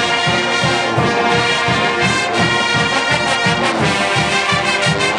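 Marching band playing, its brass section with sousaphones sustaining loud chords over a steady drum beat of about two to three strokes a second.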